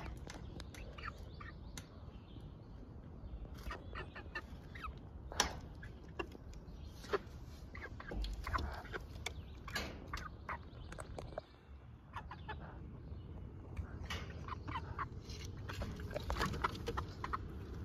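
Hens clucking, with many short, scattered clucks and calls.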